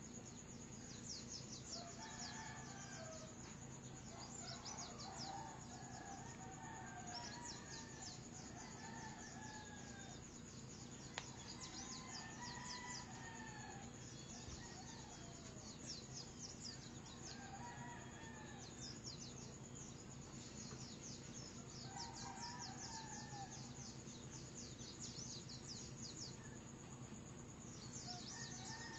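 Several roosters crowing faintly, one call after another every few seconds and sometimes overlapping, over a dense, fast, high-pitched chirping and a low steady hum.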